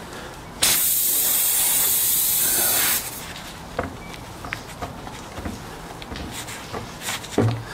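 Air hissing out of a punctured scooter tyre for about two and a half seconds, starting and cutting off abruptly, then light knocks of hands and tools on the tyre.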